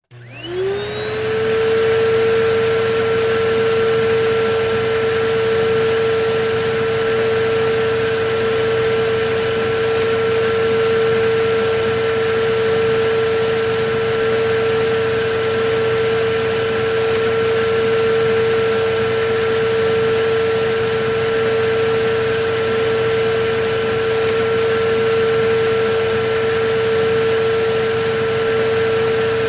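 Vacuum cleaner switched on, its motor whine rising quickly to pitch in about the first second, then running steadily with a constant high whine over a rushing airflow noise.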